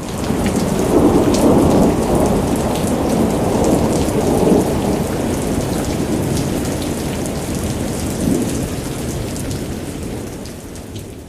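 Heavy rain falling with thunder, the thunder swelling about a second in and again at about four and a half and eight seconds; it eases off near the end.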